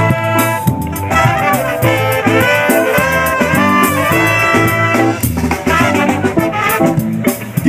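Live ska band playing, led by a horn section of trumpet, trombone and saxophones holding a melody over a steady bass line.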